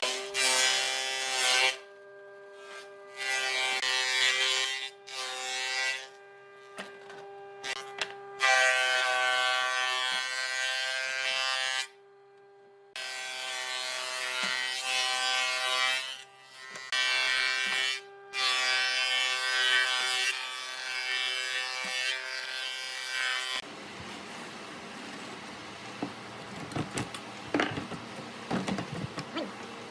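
A small electric power tool's motor hums steadily while it works wood in repeated passes, the loud rasping coming and going every second or few. After about 24 s it gives way to quieter room noise with a few light taps.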